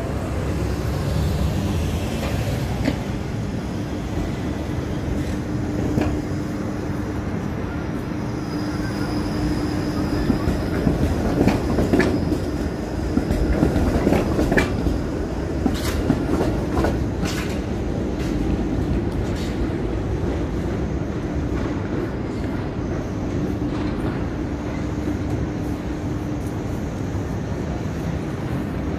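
TTC Bombardier Flexity Outlook streetcar passing close by, with a steady hum and a high whine. Its wheels clack sharply over the crossing tracks at the intersection as it goes past, loudest in the middle.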